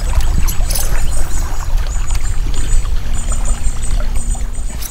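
Fishing kayak moving along a river under an electric outboard: water washing along the hull over a steady low rumble.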